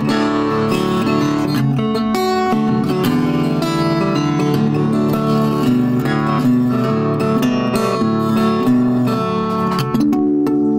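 Background music: acoustic guitar playing a strummed and picked melody, changing near the end to sustained ringing tones.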